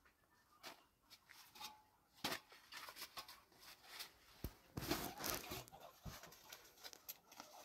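Hand mixing flour and water into bread dough in a large metal basin: soft, irregular scraping and rubbing strokes of dough and fingers against the bowl, busier about five seconds in.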